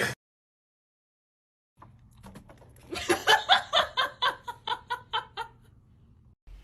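Silence for the first couple of seconds, then a person laughing in a quick run of short bursts, about four or five a second, that fades out near the end.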